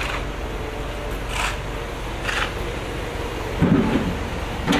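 Street traffic: vehicle engines running steadily, with a few short hisses. A louder low engine rumble starts near the end.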